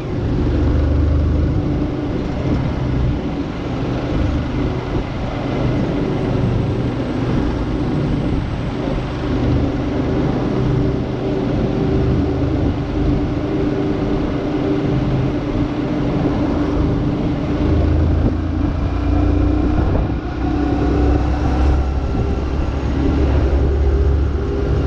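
A motor vehicle's engine running steadily, with continuous low road rumble and a steady drone.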